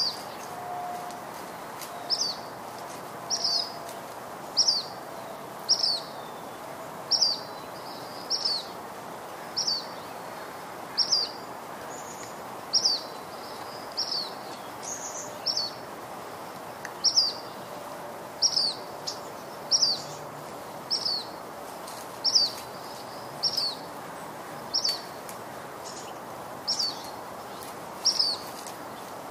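A bird repeating a single short, high chirp about once a second, over a steady background hiss.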